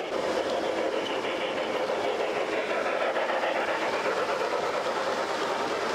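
G-scale model train running along its track, a steady rolling rumble of its wheels on the rails.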